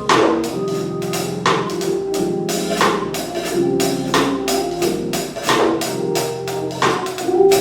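Gospel music from a church music ministry: sustained instrumental chords under a steady percussion beat of quick, sharp hits, with no singing.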